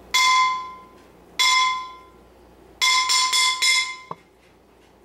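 A ringing metal object struck sharply, the noise for a puppy's sound-sensitivity test: two single strikes about a second apart, then several quick strikes in a row, each left to ring. A short dull knock follows about four seconds in.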